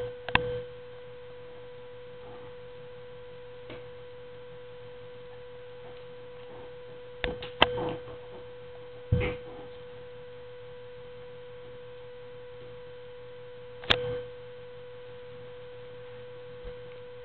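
A steady high-pitched electrical hum that holds one pitch throughout, broken by about five short clicks and knocks spread through the stretch.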